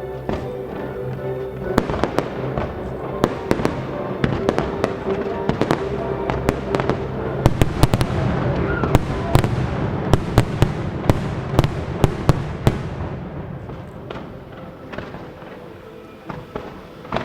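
Fireworks going off in a rapid string of sharp bangs and crackles over orchestral music. The bangs begin about two seconds in, come thickest in the middle, and thin out near the end.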